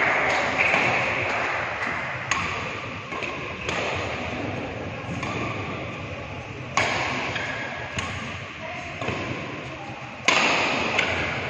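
Badminton rally: rackets striking the shuttlecock in a large hall, a sharp crack every one to two seconds, about seven hits, the loudest near the end.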